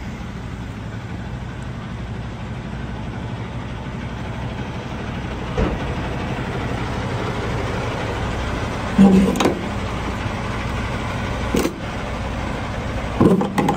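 Semi-truck diesel engine idling steadily, with several short knocks and clanks as the trailer's air-line gladhands are handled, the loudest about nine seconds in.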